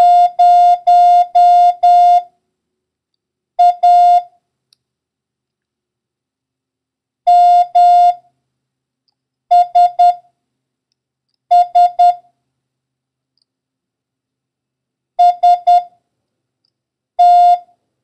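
Morse code practice tone, a steady beep keyed into dahs and dits, sent as single characters a second or more apart: five dahs (the number 0), then A, M, three S's and a final T.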